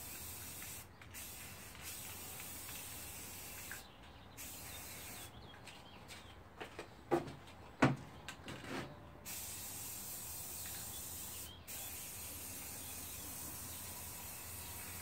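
Aerosol can of spray primer hissing in long bursts with short breaks, as a coat of primer goes on. In the middle the spraying stops for a few seconds and a few short knocks sound.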